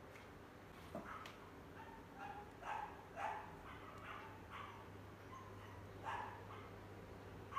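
Faint dog yapping: a string of short, pitched yaps at uneven intervals, over a steady low hum.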